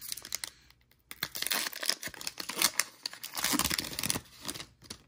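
Wrapper of a 2021 Panini Absolute football card pack being torn open and crinkled by hand, in crackly bouts with a short pause about a second in, stopping just before the end.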